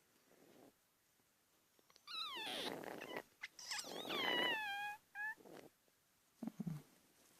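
A parrot yawning with a squeaky voice: two drawn-out calls about a second long that slide down in pitch, then a short low sound near the end.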